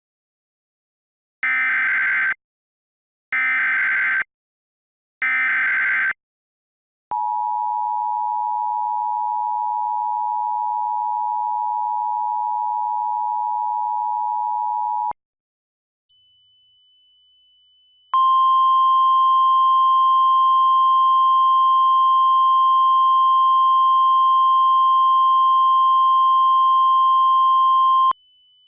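Emergency Alert System tones for a tornado warning. First come three short bursts of SAME header data, then the two-tone EAS attention signal (853 and 960 Hz) held for about eight seconds. After a brief pause comes a steady single-pitch 1050 Hz weather-radio warning tone for about ten seconds.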